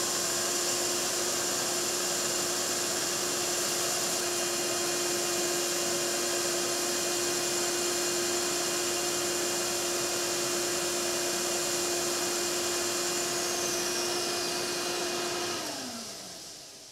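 Combination belt-and-disc sander running steadily while the transom's top edge is rounded over. Near the end it is switched off and its pitch falls as it spins down.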